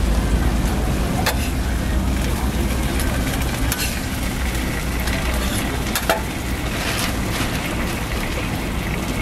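Steady low machine hum of a street food stall with faint griddle sizzling, and three sharp clicks as a metal spatula sets a sauced patty onto the foil-wrapped bun.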